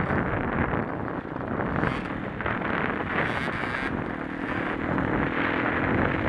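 Enduro dirt bike engine running under way across rough grass, heard through heavy wind buffeting on a helmet-mounted microphone.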